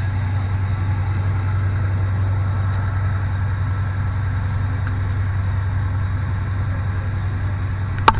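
Fishing boat's engine running with a steady low hum, and a single sharp knock near the end.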